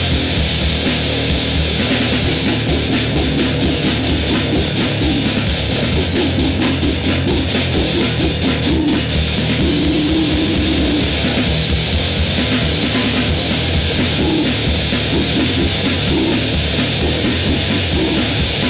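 Grindcore band recording: heavily distorted electric guitar and a drum kit playing loud and without a break.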